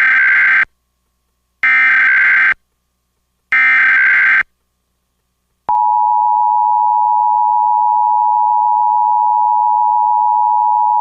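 Emergency Alert System SAME header: three identical one-second bursts of warbling modem-like data about a second apart, encoding a test tornado warning. After a short gap, a loud steady attention tone begins and holds.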